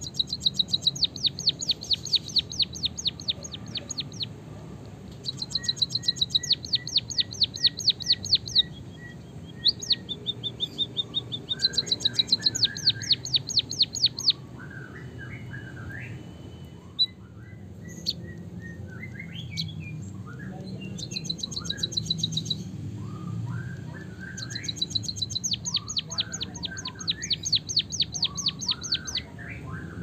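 White-headed munia singing a canary-style song: bursts of fast, high rolling trills a few seconds long, repeated with short gaps, and softer lower chirping notes in between.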